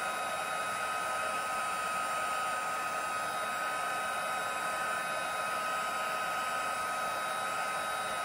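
Hot-air blower running steadily, a rushing of air with a constant motor whine, heating heat-shrink tubing to shrink it tight onto a ribbon end as an aglet.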